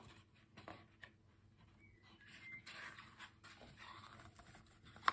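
Faint rustling and handling of a hardback picture book as it is picked up and opened, with a short sharp knock near the end.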